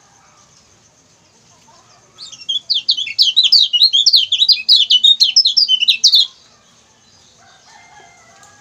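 Kecial kuning (yellow white-eye) singing a fast run of high, sharp 'ciak ciak' chirps, about seven or eight notes a second. The run starts about two seconds in and lasts about four seconds.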